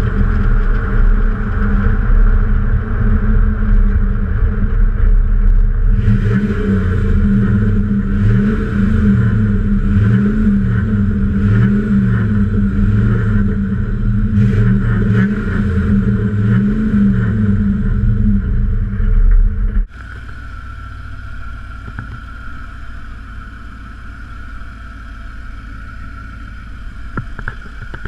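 Ford 5.0 L (302) V8 exhaust of a 1995 F-150 under way, loud, its pitch rising and falling over and over with the throttle. About twenty seconds in it drops abruptly to a much quieter engine sound with wind noise.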